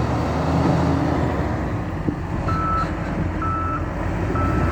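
Heavy construction machine's engine running steadily; about halfway through, its reversing alarm starts beeping, roughly once a second, as the machine backs up.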